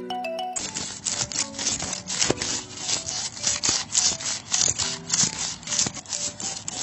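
Hand saw cutting wood: quick back-and-forth rasping strokes, about three a second, starting about half a second in.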